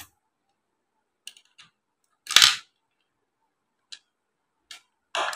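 A few sharp clicks and one louder short scrape about two and a half seconds in: a screwdriver working a screw out of a monitor circuit board.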